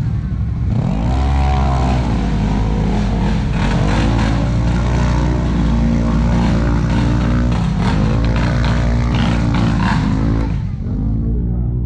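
Off-road racing vehicle's engine revving hard on a takeoff. Its pitch climbs steeply about a second in, then dips and climbs again three times through the run.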